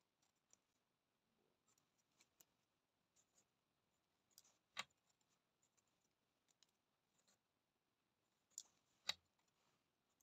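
Faint clicks and ticks of net-making tools being handled as twine is looped over a mesh gauge, with a sharper click about halfway through and two more close together near the end.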